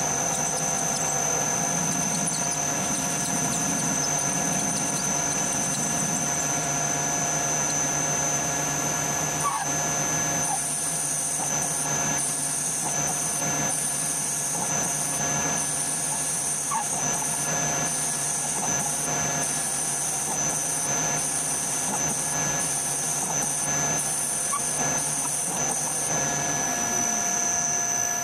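Metal lathe running under power, turning a steel part, a steady gear whine with several held tones. From about ten seconds in, a high hiss comes and goes over it.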